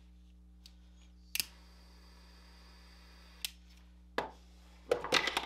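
Butane torch lighter clicked on, its jet flame hissing faintly for about two seconds while it singes the end of a fabric wire loom, then clicked off. A few more clicks and knocks follow, the loudest near the end.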